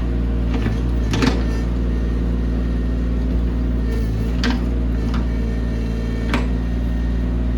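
Mini excavator engine running steadily, with a few sharp clanks over it.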